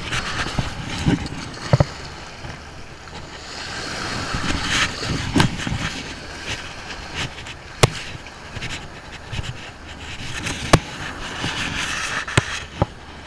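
Small waves washing up the beach and running back, surging twice, with wind buffeting the microphone and a few sharp clicks.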